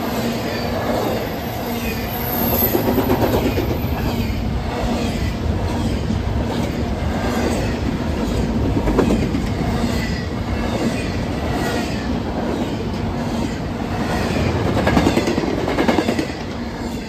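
Intermodal freight cars rolling past close by: a steady rumble of steel wheels on rail with repeated clickety-clack over the rail joints and a faint wheel squeal at times. The sound falls off near the end.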